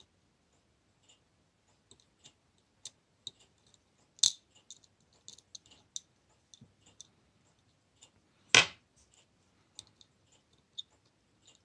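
Small metallic clicks and taps of a watchmaker's screwdriver and tweezers working on a pocket watch movement as the winding-mechanism screws are taken out. Two sharper clicks stand out, about four seconds in and about eight and a half seconds in; the second is the loudest.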